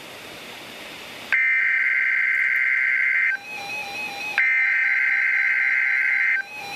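Weather radio static hiss, then two 2-second bursts of NOAA Weather Radio EAS SAME header data tones about a second apart. The bursts are the coded header that opens a Required Weekly Test alert.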